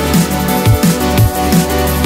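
Electronic background music with a steady beat and deep bass hits.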